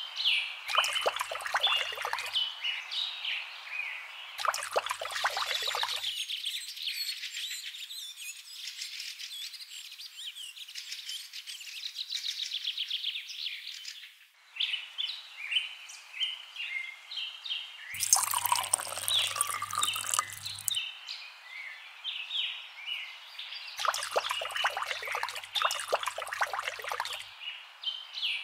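Several birds chirping and trilling. Short stretches of scratchy rustling noise come and go, the loudest a little after the start and again around two-thirds of the way through.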